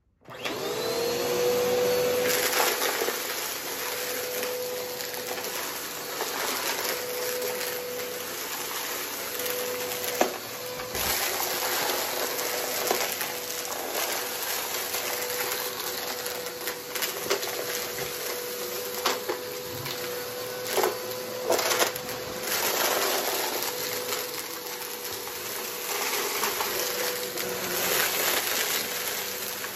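Bagless upright vacuum cleaner switched on, its motor hum rising and settling within the first second, then running steadily while it sucks up a pile of small, hard colourful debris, which rattles and crackles through the nozzle in many short clicks.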